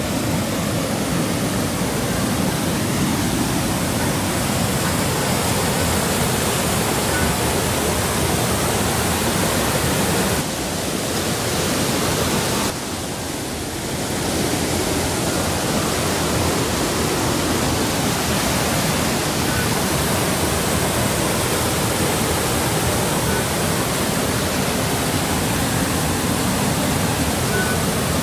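Water gushing in a loud, steady rush through a row of arched outlets into the river, an artificial waterfall driven by pumps that force the water out fast. Briefly quieter about 10 seconds in and again around 13 seconds.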